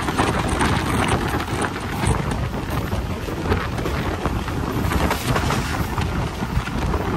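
Passenger train running at speed: a loud, steady rumble of wheels on the track with rapid, uneven clatter, and wind buffeting the microphone.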